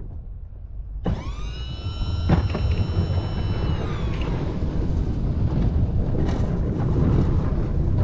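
A snow-plowing machine's engine rumbles throughout. About a second in, a high whine with several pitches starts suddenly, rises and then holds for about three seconds, fitting the hydraulics lowering the Sno-Power rear plow. After the whine stops, the engine works a little harder and a rough scraping rush comes in as the plow pushes snow.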